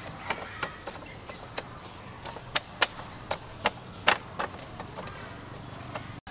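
Split bamboo slats clacking and knocking against one another as they are pressed into a bamboo wall panel: a string of irregular sharp clacks, loudest and most frequent in the middle.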